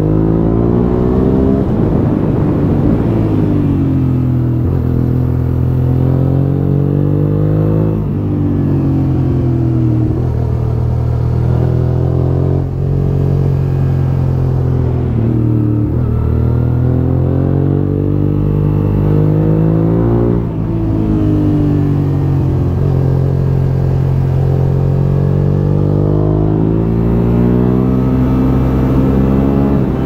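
1999 Suzuki SV650S V-twin engine through an Akrapovic full-system exhaust, accelerating and easing off as the bike is ridden. Its pitch climbs and falls several times, with two short dips in level where the throttle closes.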